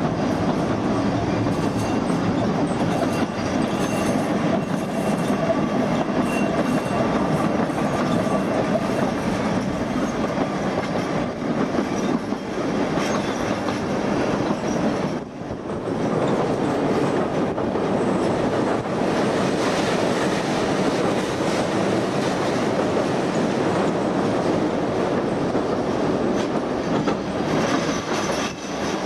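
An Oigawa Railway train running along the track: a steady rumble of wheels on rail, with a brief drop in level about halfway through.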